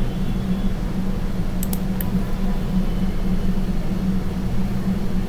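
Steady low hum from the recording setup, with a few quick sharp clicks a little under two seconds in, such as mouse or keyboard clicks.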